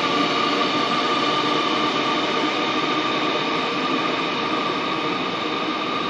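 Steady hum and rumble of an underground metro platform, with a few faint steady tones running through it, easing slightly toward the end.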